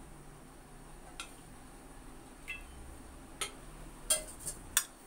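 Light metal clinks of a spoon against a stainless steel pot as cooking oil is spooned into it, one clink ringing briefly. The clinks are scattered, with several close together near the end, over a low steady hum.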